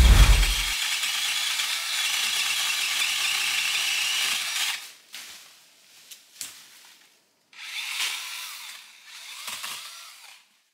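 DeWalt 20 V cordless pole saw running as it cuts brush: one steady run of about four seconds that cuts off, a pause with a few small clicks, then two shorter runs near the end. A short low thump sounds at the very start.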